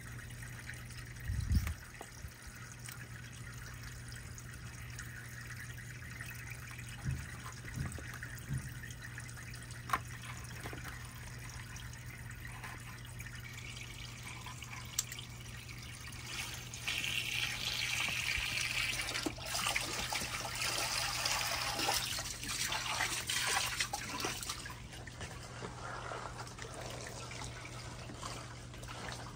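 Water trickling and splashing, louder for about eight seconds in the middle, over a steady low hum. There is a soft knock about a second and a half in, and three more between seven and nine seconds.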